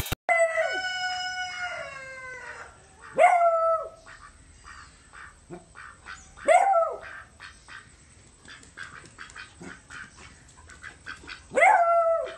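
A beagle baying repeatedly in drawn-out calls, several seconds apart, with two close together near the end.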